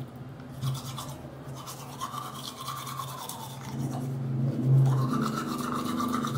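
Manual toothbrush scrubbing teeth in quick back-and-forth strokes, with a low steady hum underneath that swells about two-thirds of the way in.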